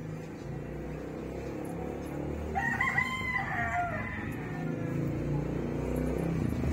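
A rooster crowing once: one call of about a second and a half that starts about two and a half seconds in and falls away at its end, over a low steady rumble.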